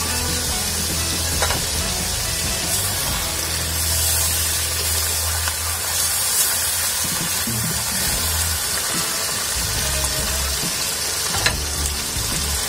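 Beef skin and potato wedges sizzling as they fry in oil in a wok, stirred with a slotted spatula, with a couple of sharp clicks. Background music with a low bass line plays under the sizzle.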